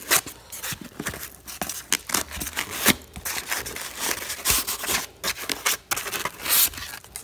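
Packaging being handled: the plastic wrapping around the boxed capacitor crinkling and rustling, with the foam insert and cardboard scraping, in a rapid, irregular run of crackles.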